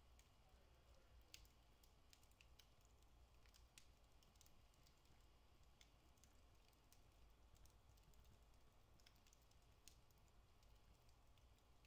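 Faint crackling of a wood fire burning in a fireplace: scattered, irregular small ticks and pops over a low steady background hum.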